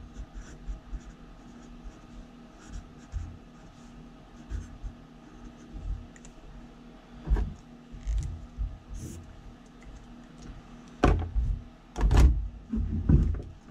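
Marker pen writing on paper, faint scratching and squeaking strokes, with a few loud dull knocks of things handled on the desk about halfway through and again near the end.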